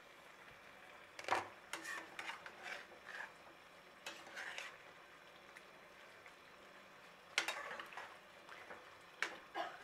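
A flat spatula scraping and knocking against a kadai as chicken pieces in thick masala are stirred, over a faint steady sizzle. The scrapes come in short bunches: about a second in, around four seconds, and again near seven and nine seconds.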